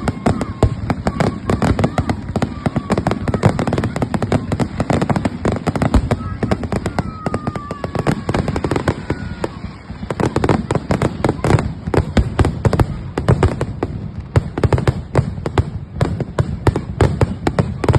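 Fireworks going off in a dense, rapid run of crackling pops and bangs, many a second and without a break.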